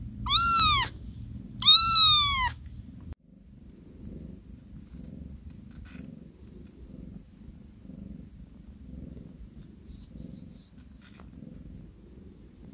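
Young tuxedo kitten meowing twice, two loud high-pitched calls that rise and then fall in pitch, followed from about three seconds in by low purring that swells and fades about twice a second.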